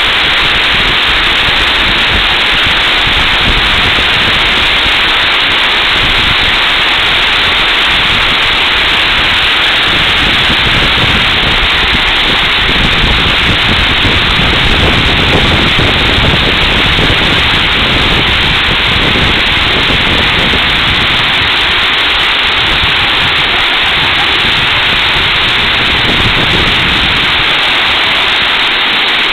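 Water pouring over a concrete dam spillway: a loud, steady rush of falling water.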